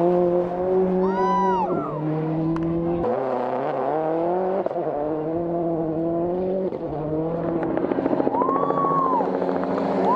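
Turbocharged four-cylinder World Rally Car engine driven hard on a stage, its pitch stepping up and down through several gear changes. Two short high squeals rise and fall over it, about a second in and near the end.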